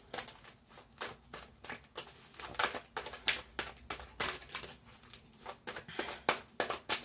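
A deck of tarot cards being shuffled by hand: an irregular run of quick card slaps and rustles.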